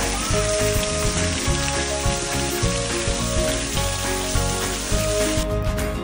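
Thin streams of a small waterfall splashing onto rock, an even hiss, under background music with held tones. The water sound stops abruptly near the end and the music carries on with a sharper beat.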